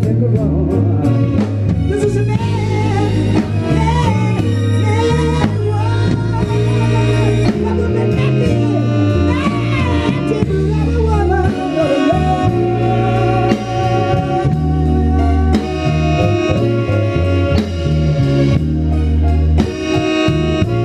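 Band music playing loud and steady: drum kit, a deep bass line and a bending lead melody, with no sung words.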